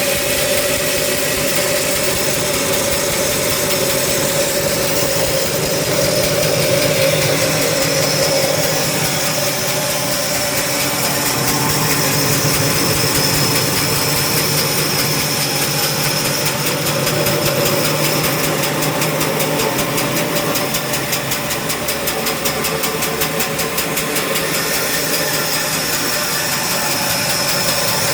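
Sawmill saw running steadily as it cuts through teak wood, a continuous loud machine hum, with a fine rapid rattle joining in during the latter part.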